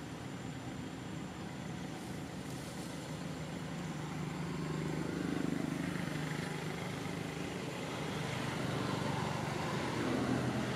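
Steady low rumble of distant motor-vehicle noise, swelling about halfway through and again near the end.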